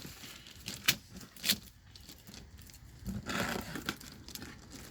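Wrapping paper on a present being handled and torn open: two short sharp crackles about a second in, then a longer rustle about three seconds in.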